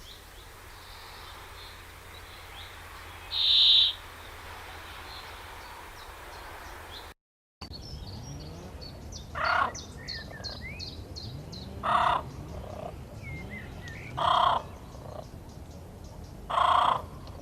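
Birds calling: a single short high call, then after a brief break a loud call repeated four times, about every two and a half seconds, with fainter chirps in between.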